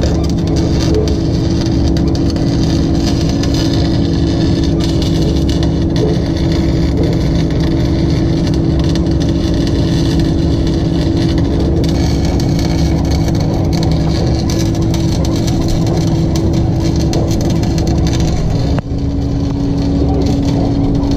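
Torch flame running steadily with a constant low hum, heating the differential. About 19 seconds in, the higher of two hum tones stops.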